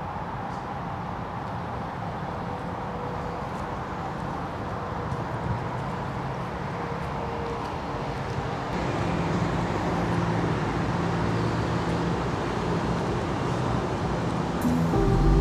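Steady road traffic noise. About halfway through it grows louder with a low engine hum as a vehicle draws near.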